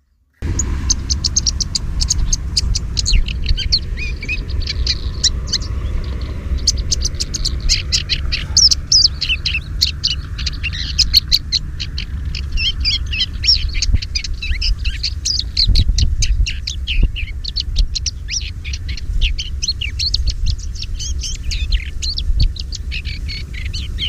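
Many small birds chirping densely, rapid high-pitched notes running together, over a steady low rumble on the microphone. The sound cuts in abruptly just after the start.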